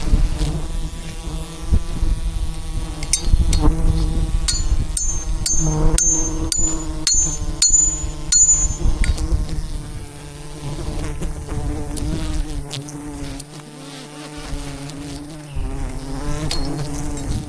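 A swarm of wild honeybees buzzing around a giant hive, a steady hum with scattered clicks. A high, short double chirp repeats about twice a second for several seconds in the middle.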